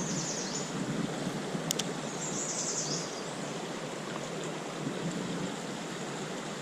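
A small river running steadily over its bed. A faint sharp click comes a little under two seconds in.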